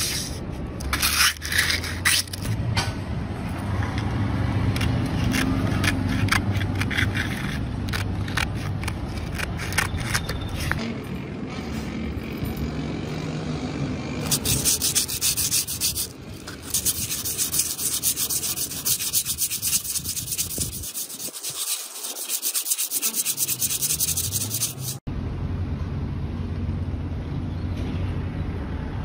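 Sandpaper rubbing and scraping on metal welding rods. For about the first ten seconds it comes in uneven strokes. From about halfway in, a faster, steady rasping runs for roughly ten seconds and cuts off suddenly near the end.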